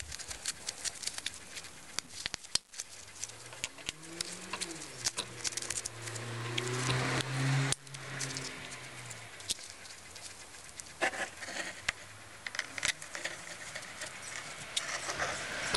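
Small metal parts (bolts, nuts and washers) clicking and tapping as gloved hands fit them onto an aluminium gutter bracket, amid light handling noise. A faint low hum rises and falls for a few seconds in the middle.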